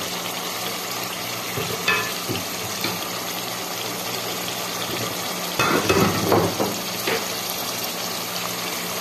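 Keema aloo, a minced-meat and potato curry, sizzling steadily in a nonstick pot over a low hum, with a few knocks against the pot, clustered about six seconds in.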